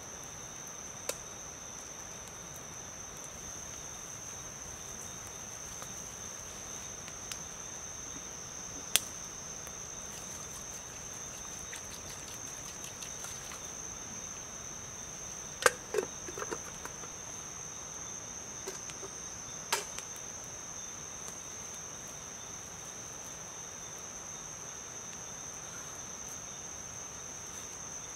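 Crickets chirring as a steady high-pitched insect chorus. A few sharp knocks punctuate it, the loudest a small cluster just past the middle.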